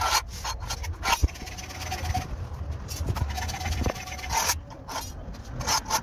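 Short scraping strokes of a pencil drawn along an aluminium straightedge against a rough concrete block wall, marking a line. There are several quick scrapes in the first second, quieter scratching in the middle, and a couple more strokes near the end.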